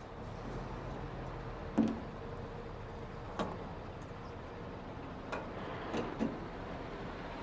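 Steady low engine and road noise inside a moving truck's cab, with a few sharp clicks and knocks at irregular intervals, the loudest about two seconds in.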